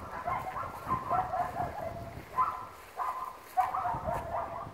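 A dog giving a run of short, high-pitched yelps that come in quick groups throughout.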